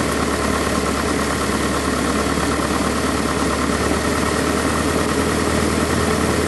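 Cessna's single piston engine and propeller running steadily at low taxiing power, heard from inside the cockpit.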